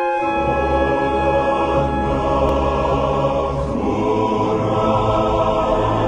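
Cinematic music: a choir holding sustained chords over a deep low drone that enters at the start, the bass note shifting about four seconds in.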